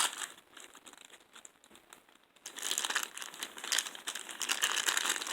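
Crinkling plastic wrapping as LOL Surprise toy packages are torn open by hand, sparse at first and thicker crinkling from about halfway on.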